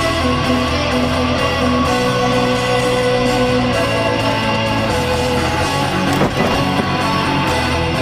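Background music led by guitar, loud and steady.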